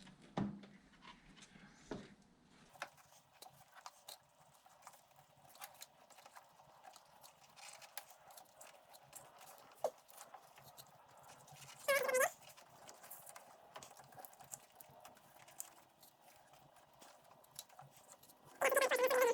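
Scotch Super 88 vinyl electrical tape being pulled off the roll and wrapped around wires: two brief squealing pulls, one about twelve seconds in and one near the end, amid light clicks and rustles of handling.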